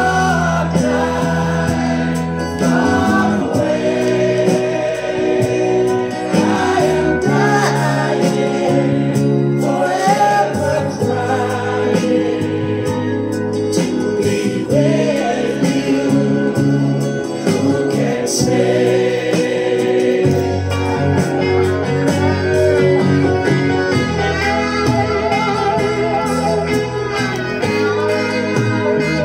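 A recorded song played back over a large hi-fi system of horn loudspeakers and valve amplifiers: a chorus of voices singing over a band, with no break.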